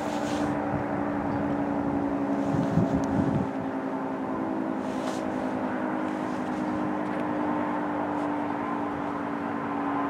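Federal Signal 2T22 dual-tone outdoor warning siren sounding its steady alert chord during a monthly test: several held tones that drift slightly lower in pitch.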